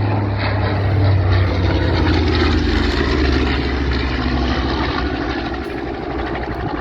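Propeller airplane engine flying past, loudest in the first few seconds. Its low drone drops in pitch about a second and a half in as the plane goes by.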